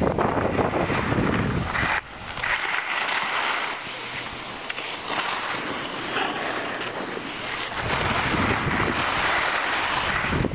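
Wind buffeting the microphone of a camera carried by a downhill skier, over a steady hiss of skis sliding on snow. The low buffeting drops away about two seconds in and comes back near the end.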